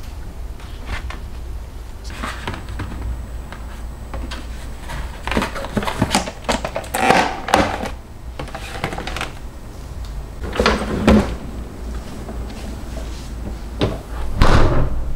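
Handling sounds from a clear plastic clamshell container of button mushrooms and kitchen paper being packed on a counter: rustling and clacking, loudest about halfway through. Near the end comes a refrigerator door being handled.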